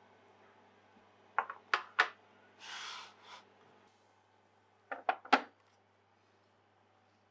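Tableware being set on a wooden serving tray: a few light knocks and clinks of a ceramic plate, a book and a fork, with a brief sliding scrape between them. There is one cluster of knocks about a second and a half in and another about five seconds in.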